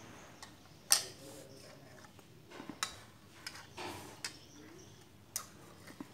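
A spoon clinking and scraping in a ceramic bowl as a toddler scoops food: several sharp clinks a second or so apart, the loudest about a second in, with softer scraping between.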